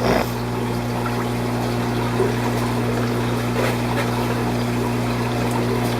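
Steady hum of aquarium pumps and filtration running in a saltwater fish room, with water trickling and a few faint taps.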